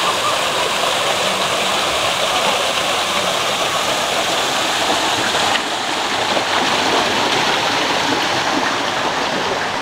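Small waterfall pouring over a boulder and splashing into a shallow stone basin: a steady, loud rush of falling water, a little duller from about halfway through.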